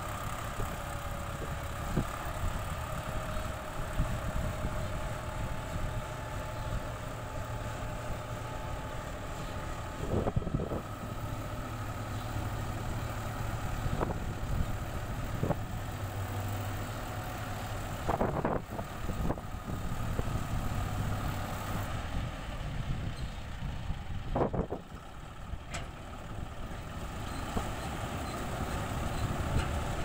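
Combine harvester's diesel engine and threshing machinery running steadily while it harvests rice in heavy mud, with a few brief knocks along the way.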